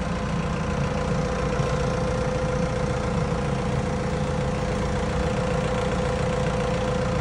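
Forklift engine idling steadily, with a constant whine over a low rumble.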